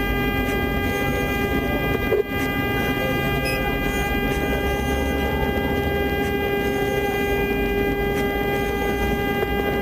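A single steady pitched tone, like a held horn or alert tone, over a low rumble, unbroken, cutting off abruptly near the end.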